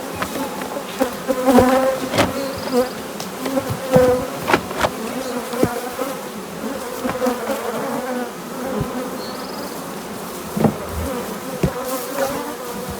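Many honey bees buzzing in flight, a dense hum that wavers in pitch, with a few sharp knocks through it.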